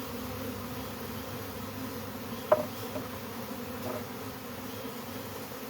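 Steady buzzing hum of a large colony of honeybees disturbed during a hive removal, many bees in the air. A single sharp tap about two and a half seconds in, with a couple of fainter ones after.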